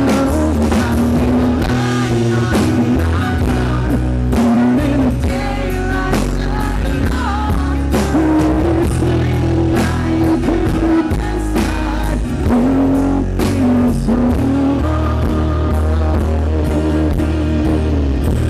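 Rock band playing an instrumental passage after the last sung line: guitar carrying a melodic line over bass and drums, steady and loud.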